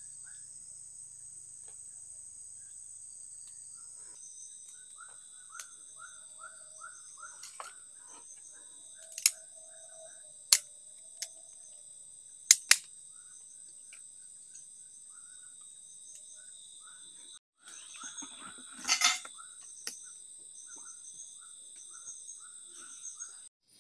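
Forest insects, crickets or cicadas, buzzing steadily at a high pitch, with a run of short repeated chirps beneath. A handful of sharp clicks or knocks in the middle are the loudest sounds, and a short rustling burst comes later. The sound cuts out briefly twice in the second half.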